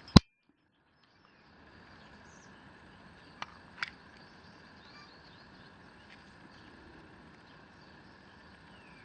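Faint, steady chirring of crickets. A sharp click right at the start cuts to a second of dead silence, and two small clicks follow a few seconds in.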